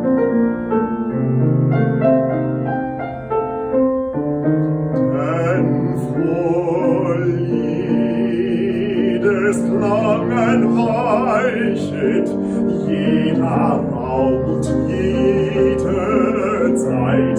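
Classical art song: a piano plays alone at first, then a baritone voice enters about five seconds in and sings with vibrato over the piano accompaniment.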